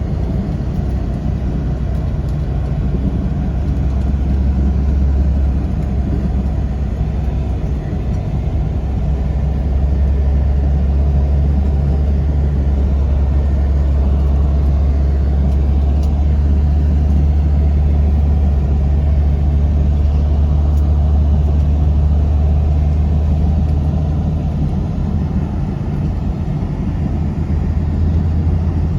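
A tour vehicle driving, heard from inside: a steady low engine and road drone that grows a little louder about ten seconds in.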